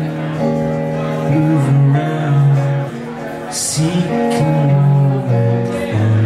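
Live band playing a song: male voice singing over electric and acoustic guitars and keyboard.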